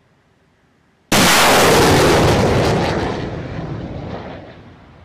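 An M142 HIMARS rocket launch: a sudden loud blast about a second in, then the rocket motor's roar, which holds for a moment and fades away over about three seconds.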